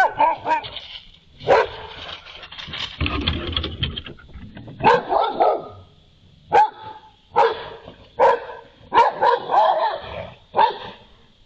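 A dog barking repeatedly, single barks and short runs of barks with gaps of about a second between them. A brief low rumbling noise comes about three seconds in.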